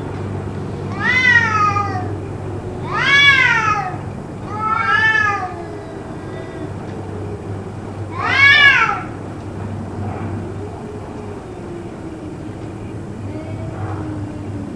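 Cat meowing loudly and insistently, four long calls that rise and fall in pitch and come a couple of seconds apart. A quieter, low wavering call drags on underneath.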